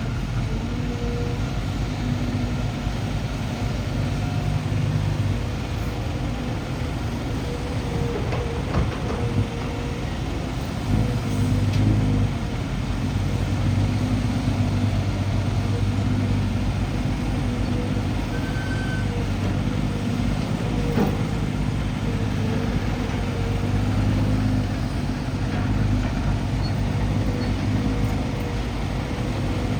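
Dump truck's diesel engine running steadily under way, a low drone that swells and eases every few seconds.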